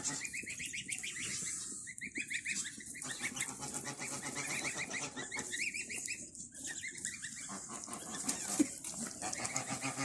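A flock of domestic ducks and geese calling, with many short calls overlapping in quick runs.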